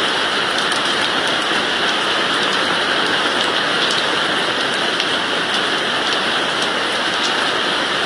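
Steady, even hiss with faint scattered crackles: an ambient noise track presented as the 'sound' of Jupiter's moon Thebe.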